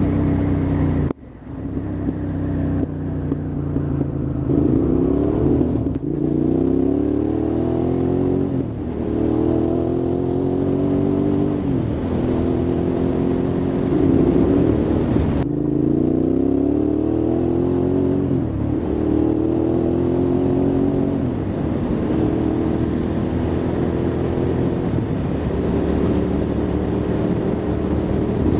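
Hyosung GT650R's V-twin engine pulling through the gears: its pitch climbs for two to three seconds, then drops sharply at each upshift, about eight times over. There is a brief sharp dip in loudness about a second in.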